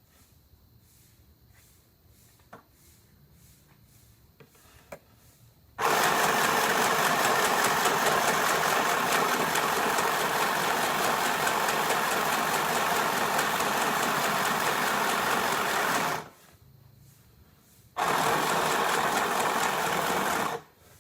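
Mini portable sewing machine stitching: a few faint clicks, then one long run of about ten seconds, a short stop, and a second run of about three seconds.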